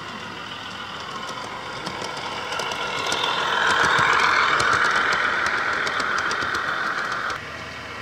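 Garden-railway model railcar train passing close by: a whine from the motor and gearing, with wheels clicking on the track. It grows louder to a peak about four seconds in, as the coaches go by, and cuts off sharply near the end.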